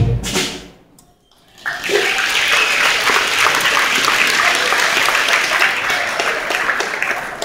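A beginner school band's last chord dies away. After a second of quiet the audience claps: dense, steady applause that starts suddenly and tapers off near the end.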